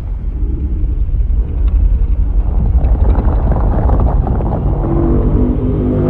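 Godzilla atomic-breath sound effect charging up: a loud, deep rumble with faint crackles that swells steadily, with a pitched, droning layer joining near the end.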